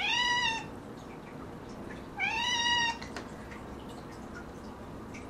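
A domestic cat meowing twice: two short, high meows about two seconds apart, each rising in pitch and then levelling off. A faint click follows the second meow.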